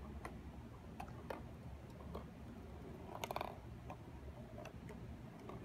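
Ping pong ball rolling through a tilted cardboard maze, tapping lightly against the cardboard walls in scattered faint ticks, with a short rattle about three seconds in.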